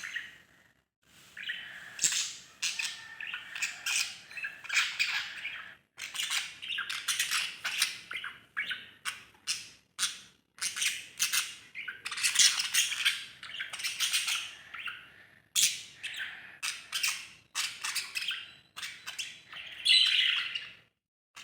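Pet parrots, lovebirds among them, chattering and squawking in fast runs of shrill, short calls with brief pauses between the runs.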